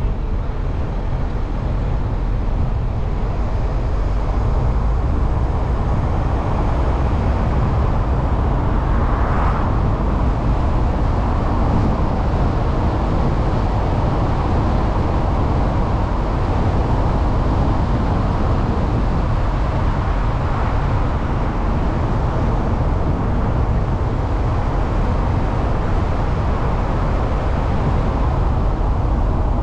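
Steady, mostly low-pitched running noise of a car driving: engine and tyre noise, with a brief brighter swell about a third of the way in.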